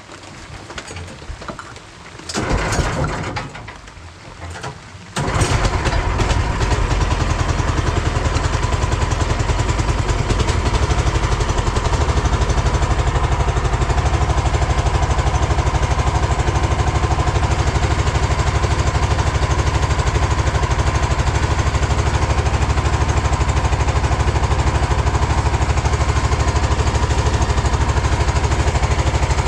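A small engine starts about five seconds in and then runs steadily with a fast, even beat.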